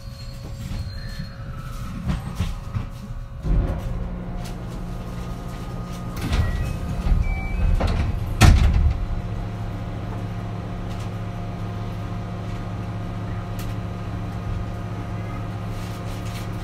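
Doors of a JR West 223 series 2000 electric train sliding shut: three thuds about three and a half, six and eight and a half seconds in, the last the loudest. A steady low hum from the standing train follows.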